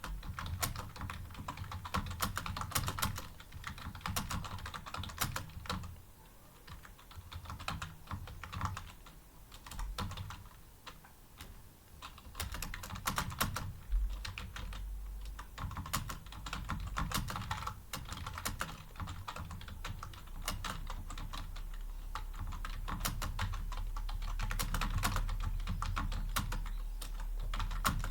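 Continuous typing on a computer keyboard, a dense stream of key clicks, thinning to a slower patter for a few seconds in the first half. A low hum comes in partway through.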